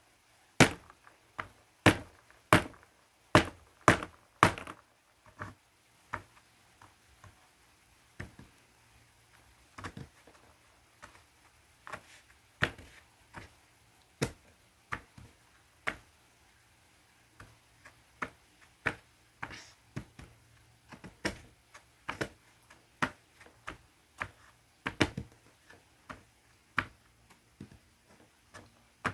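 Heart-shaped naphthalene mothballs crushed under a gloved fingertip against a hard surface: a string of sharp, separate crunches and taps. They come thick and loud in the first few seconds, thin out in the middle, and pick up again in the second half.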